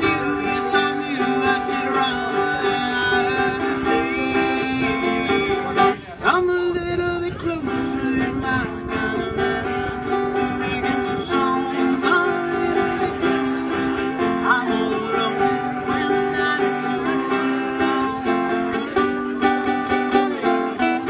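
Two acoustic guitars playing an instrumental passage, chords with a melody line over them, with a brief break in the sound about six seconds in.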